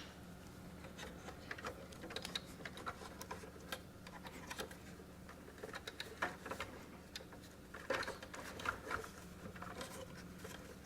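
Faint scattered clicks and light plastic handling noises from the cable connectors and ground lead being worked loose from a thermal label printer's printhead, with a small flurry of clicks about eight seconds in.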